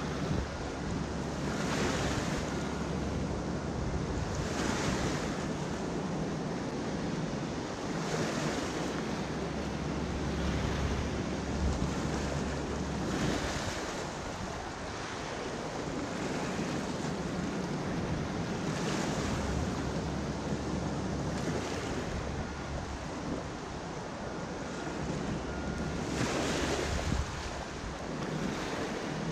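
Small river waves lapping and splashing against the shoreline rocks, with wind buffeting the microphone and louder surges every few seconds.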